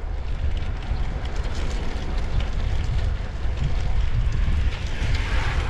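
Steady wind buffeting the microphone while moving at speed: a constant low rumble under a hiss, which brightens a little near the end.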